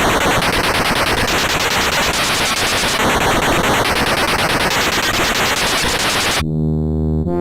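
Harsh, distorted electronic noise like loud static, with a faint repeating pattern about every three seconds. About six seconds in it cuts off suddenly to sustained synthesizer chords.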